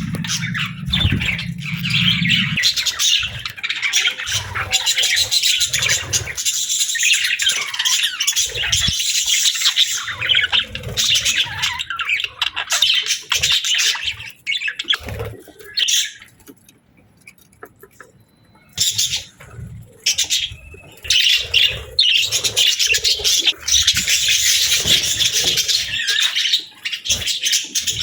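A flock of budgerigars (parakeets) chattering and chirping in a dense, busy warble, with a low rumble in the first couple of seconds. The chatter drops to a lull of about three seconds past the middle, then resumes just as busily.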